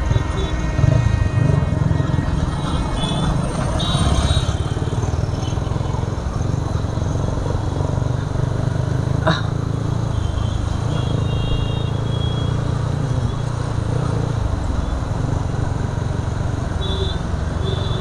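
Motorcycle running along the road, with a steady low rumble of wind on the microphone, a sharp click about nine seconds in, and brief high horn toots from traffic a few seconds in and again near the end.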